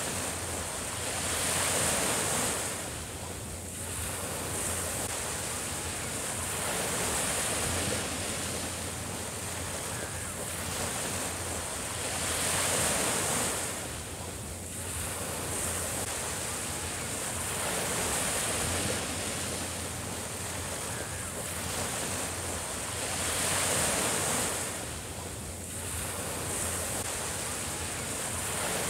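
Small waves breaking and washing up on a sandy beach, the surf swelling and falling back about every five to six seconds.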